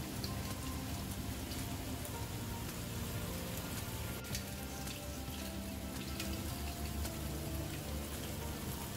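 Water dripping and trickling onto a steel plate as soaked soya granules are squeezed by hand, over soft background music.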